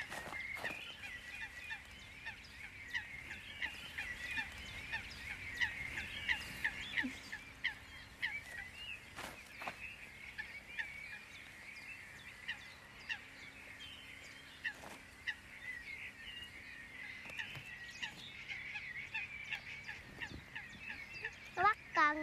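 Woodland birds chirping and calling: a steady scatter of short, quick, high chirps, with a few soft knocks.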